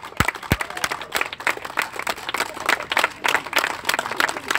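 Crowd applauding, many hands clapping fast and unevenly without a break.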